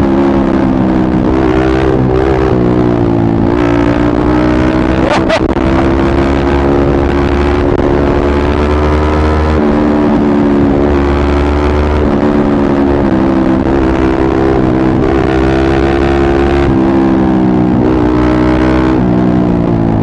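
Yamaha MT15's single-cylinder engine through an aftermarket Akrapovic exhaust, running steadily under load at cruising speed in fourth gear, its pitch dipping and rising a little with the throttle.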